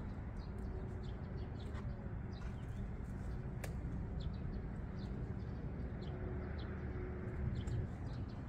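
Steady low outdoor rumble with small scattered clicks and rustles as a mesh inner tent is fitted to its poles by hand, one sharper click about three and a half seconds in.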